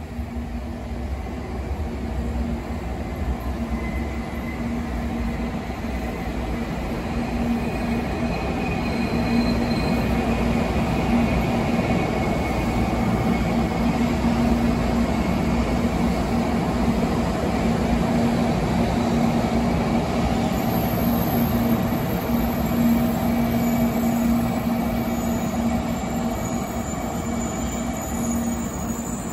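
N700-series Shinkansen Sakura train running into the station along the platform track: a steady rush with a low hum that builds over the first several seconds and then holds. A thin high squeal comes in during the last third.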